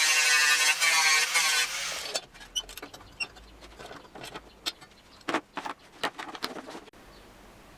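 A grinder grinding the edges of scrap steel down to bare metal ready for welding runs loudly, its pitch wavering under load, and cuts off about two seconds in. A scatter of light metallic clicks and knocks follows.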